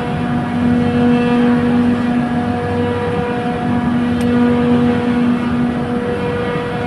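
Trane chiller compressor running: a loud, steady machine hum with a strong low tone and higher overtones over a constant rushing noise.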